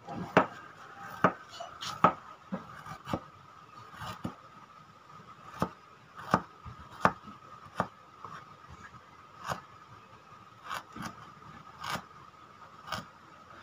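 Serrated kitchen knife slicing fresh ginger on a plastic cutting board: sharp, irregular knocks of the blade striking the board, about one or two a second, over a faint steady hum.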